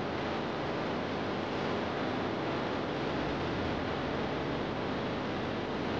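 Steady rushing hiss with no distinct sounds in it, even in level throughout.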